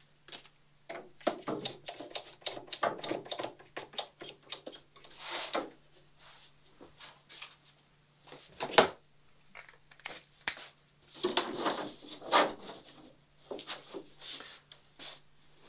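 Woodworking clamps being set and tightened on a plywood plank against a boat's hull mold: irregular clicks, knocks and scuffing as the clamps and plank are handled, with one sharp knock about nine seconds in.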